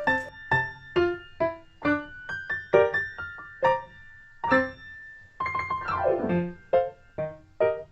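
Background music of quick, bouncy piano notes, with a fast descending run of notes about six seconds in.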